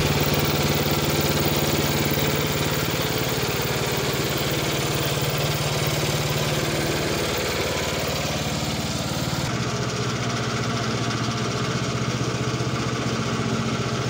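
An 8 hp single-cylinder gas engine drives a homemade bandsaw mill and runs at a steady speed. The sound turns a little duller about nine seconds in.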